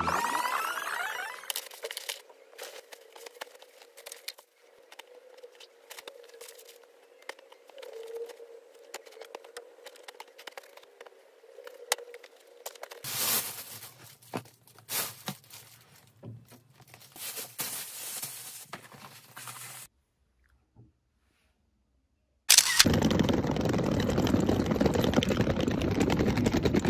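Plastic bags crinkling and rustling, with scattered clicks, as clothes are packed into a hard-shell suitcase. After a brief silence comes a steady, loud rolling noise of suitcase wheels on a brick pavement.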